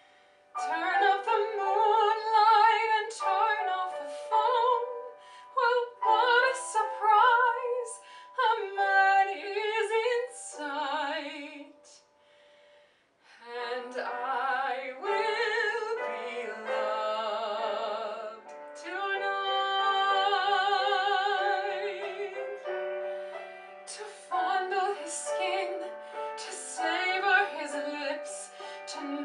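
A woman singing a musical-theatre ballad solo, her held notes carrying a wide vibrato, with a short pause about twelve seconds in.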